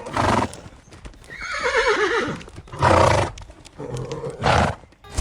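A horse whinnying once, a wavering call that falls in pitch, with short noisy blasts of breath before and after it.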